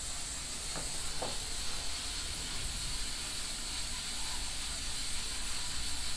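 Steady background hiss, with two faint light clicks about a second in; no mixer is running.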